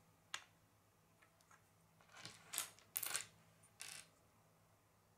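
Small plastic LEGO bricks clicking and clattering against each other and a wooden tabletop as they are handled. There is one sharp click about half a second in, a run of rattling clicks around two to three seconds in, and another short clatter near four seconds.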